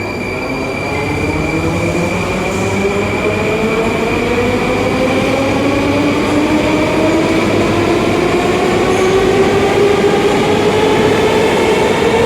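Moscow Metro train pulling out and accelerating, its traction motors giving a whine that rises steadily in pitch and grows louder, with a steady high tone over it.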